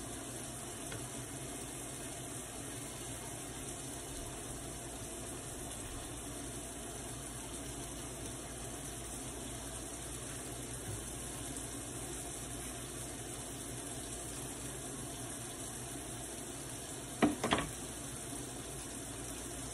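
Steady bubbling hiss of a saucepan of water at a rolling boil on a gas stove burner. A short knock comes about seventeen seconds in.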